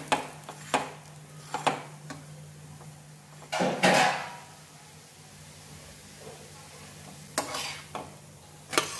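Steel spatula scraping and pressing a besan dhirde against a flat iron tawa: several short scrapes, a longer one about four seconds in, and a sharp metal click near the end. A steady low hum runs underneath.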